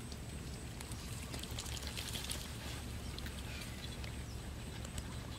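Wet squelches and small splashes as a fish is handled and scrubbed by hand in a metal basin of water, with a cluster of splashy sounds about two seconds in, over a steady low rumble.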